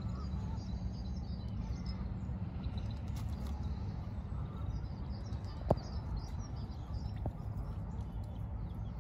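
Small birds chirping over a steady low outdoor rumble, with a sharp click a little past halfway and a fainter one shortly after.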